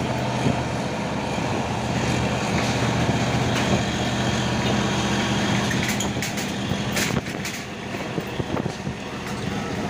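Heavy truck's diesel engine running steadily, with a few sharp knocks about two-thirds of the way through, after which the engine sound eases.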